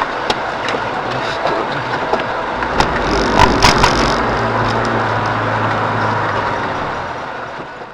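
Car driving through a snowstorm: steady road and wind noise with scattered clicks and knocks. A low steady hum comes in about four seconds in, and the sound fades out near the end.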